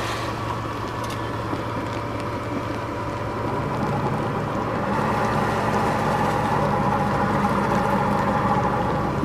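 A boat's engine running steadily, a little louder from about halfway through.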